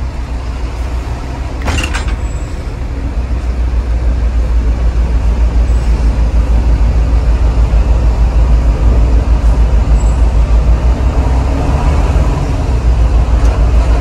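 Large bus diesel engine running as a heavy low rumble that gets louder about four seconds in. A short knock sounds about two seconds in.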